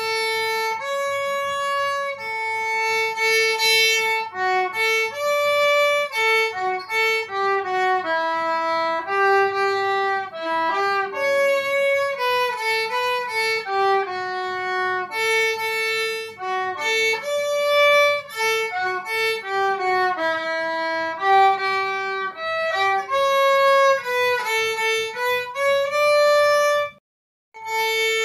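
Violin playing a single-line melody of mostly held notes, with a short break near the end.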